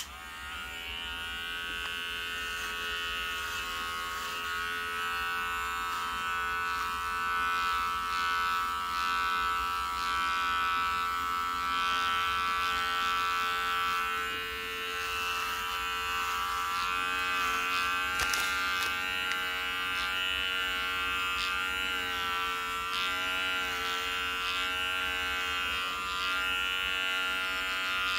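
Electric hair clipper buzzing steadily as it shaves a head down, starting up right at the beginning and running on, its pitch wavering slightly as it cuts.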